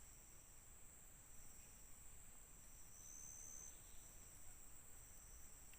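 Faint, steady high-pitched drone of forest insects, with one note swelling briefly about three seconds in.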